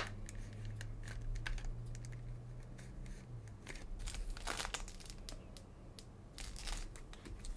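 Soft clicks and short rustles of a trading card being slid into a clear plastic card holder and handled, with two brief, brighter rustles in the second half.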